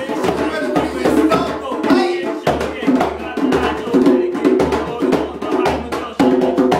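Music with a steady, repeating kick-drum beat, and a man's voice rapping over it.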